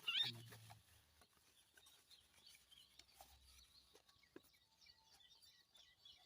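Faint chirping of small birds, after a loud arched bird call that breaks off right at the start.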